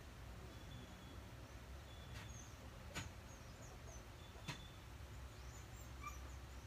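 Quiet room tone with a steady low hum, faint high chirps of small birds, and three light clicks, about two, three and four and a half seconds in.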